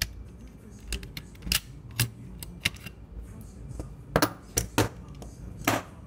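Sharp metallic clicks and clacks from a steel mortise lock body being handled and turned over, about ten in all, irregularly spaced, with the loudest coming near the end.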